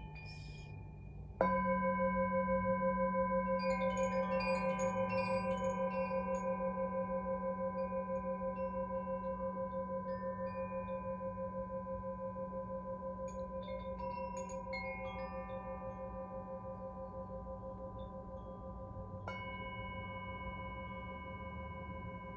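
Brass singing bowl struck once with a padded mallet, then ringing on with a pulsing, wavering hum that slowly fades. Over it, a hand-held cylindrical chime is swung, adding scattered tinkling notes.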